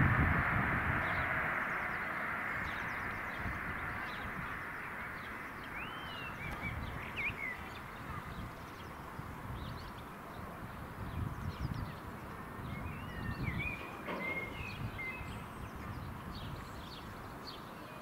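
Departing Class 43 HST fading steadily into the distance, its running noise dying away into a low rumble. Small birds chirp a few times, about six seconds in and again near fourteen seconds.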